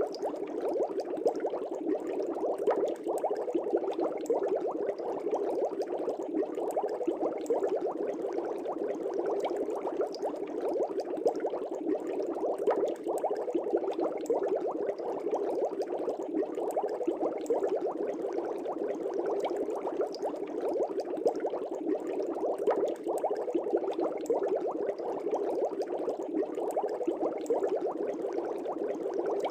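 Aquarium water bubbling steadily, a dense unbroken stream of small air bubbles rising and popping at the surface in a fish tank.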